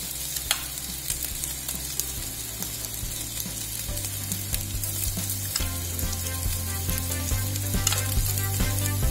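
Smashed baby potatoes sizzling in hot olive oil in a stainless steel frying pan as a garlic, parsley and paprika oil dressing is spooned over them, with a few light clicks of the spoon. Background music fades in over the second half.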